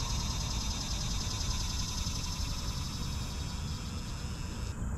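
Wind rumbling on the camera microphone, with a high, rapidly pulsing buzz in the background that stops abruptly near the end.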